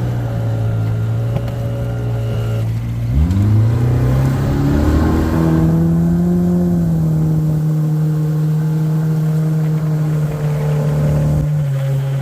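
Jet boat engine running: it idles steadily, then revs up about three seconds in and holds at a higher, steady speed as the boat gets under way, easing back slightly near the end.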